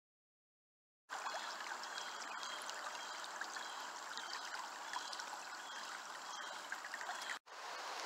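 Shallow stream running and trickling over rocks. It starts about a second in and drops out for an instant near the end.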